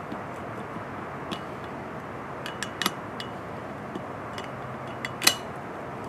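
Scattered sharp metal clicks and clinks as snap ring pliers and a screwdriver work a steel snap ring into its groove in a trailer wheel hub, over a steady background hum. The loudest click comes about five seconds in.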